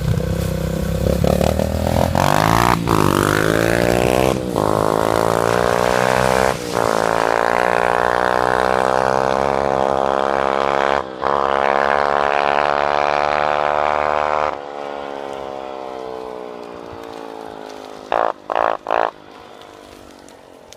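Dirt bike engine accelerating hard through the gears: the pitch climbs, with a brief break at each shift. The throttle then closes and the engine note falls away. Near the end come three short, sharp bursts of revving.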